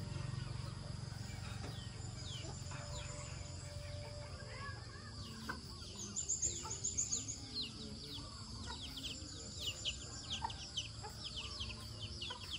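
Chickens clucking and chirping, the short high chirps coming thick and fast from about five seconds in, over a steady low rumble.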